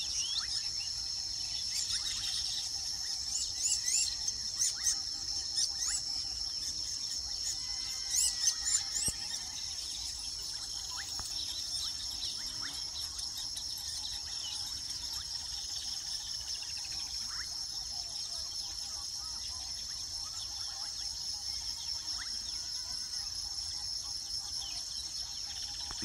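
Steady high-pitched insect trilling, with weaver birds chattering over it in quick, sharp calls, busiest in the first nine seconds or so.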